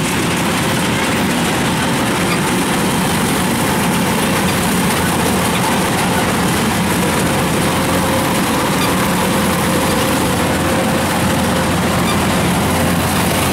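Tracked rice combine harvester's engine running steadily, a loud, even drone.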